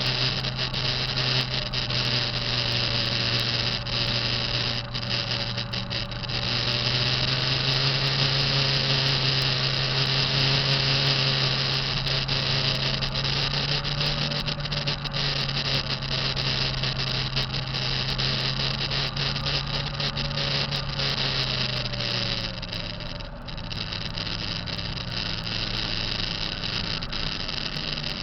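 Kenworth T660 semi truck's diesel engine running with a steady high-pitched whine over it, the sound the owner blames on a bad turbo. About 22 seconds in the engine speed drops and the sound gets a little quieter.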